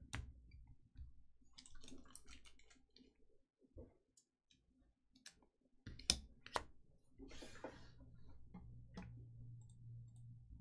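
Trading cards and foil packs being handled on a table: a few sharp clicks, scattered small ticks, and a short rustle about seven seconds in.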